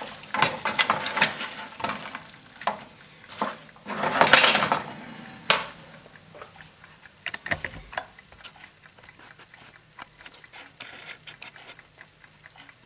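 Potatoes sizzling and crackling in hot oil in a roasting tin, with knocks and scrapes as they are moved about. The sizzle swells briefly about four seconds in, then settles to sparser crackling from about six seconds on.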